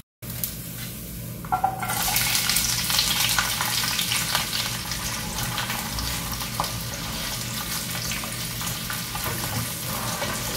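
Diced onion sizzling in hot oil in a nonstick frying pan, stirred with a spatula. The crackling sizzle starts sharply about two seconds in and keeps going, with scrapes of the spatula in the pan.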